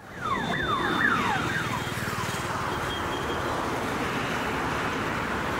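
Road traffic passing by, a steady rushing wash of tyre and engine noise. Over the first two seconds it carries a rapid series of about six falling whistle-like tones, like a car alarm or horn.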